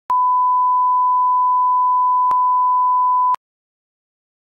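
A steady, pure electronic test-tone beep held for about three seconds, then cut off suddenly, with a faint click as it starts and another about two seconds in.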